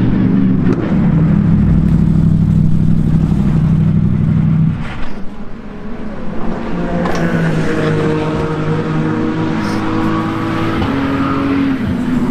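GT race car engines running hard at the track. One car's loud, steady engine note for the first five seconds, then a brief dip with a few sharp cracks, then another engine whose pitch steps and climbs as it changes gear.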